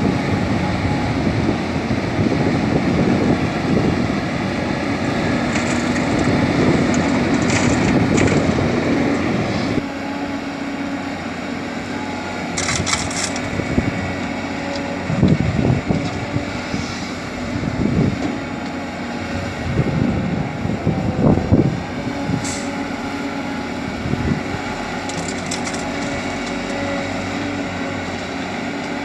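Caterpillar 320D excavator's diesel engine running steadily, with repeated clunks and scraping surges as it digs and loads laterite soil into a dump truck. The engine settles to a lower level about ten seconds in.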